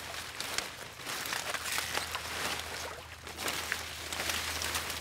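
Water hyacinth being pulled out of floodwater by hand: dense rustling and crackling of the thick leaves and stems, with water dripping and spattering off the plants. A faint low hum runs underneath.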